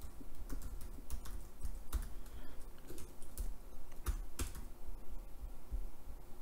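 Typing on a computer keyboard: a run of irregular keystroke clicks, with a few harder key presses about two and four seconds in.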